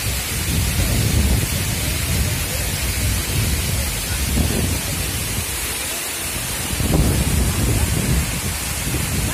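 Tall seasonal waterfall rushing steadily: an even hiss of falling water over an uneven low rumble.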